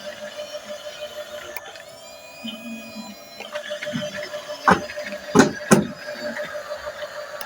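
Toy RC bulldozer's small electric drive motor and gearbox running with a steady whine, with three sharp knocks about five seconds in.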